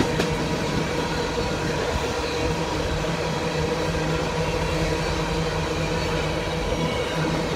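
Freight train of open-top hopper cars rolling past at close range: a steady, continuous noise of steel wheels on the rail, with a few steady tones running through it.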